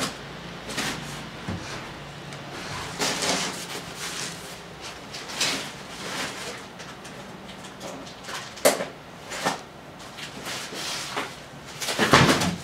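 Cardboard being handled: box flaps and loose sheets rustling and scraping, with scattered knocks and a louder scraping burst near the end.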